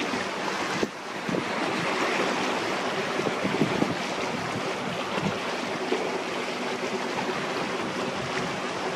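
Steady rush of water from a 262-ton harbour tug's bow wave and wake as it runs past at speed, with the low drone of its engine faintly under it and wind buffeting the microphone.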